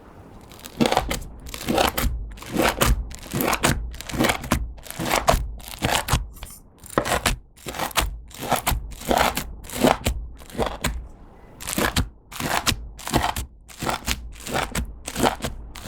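Clear slime mixed with makeup, nail stones and glitter being squished and pressed by hand, a run of sticky squishes, roughly two a second.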